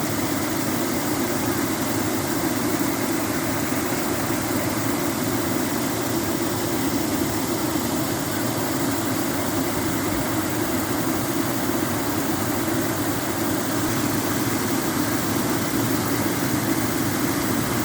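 Water falling from a rock and splashing down, a steady, continuous noise.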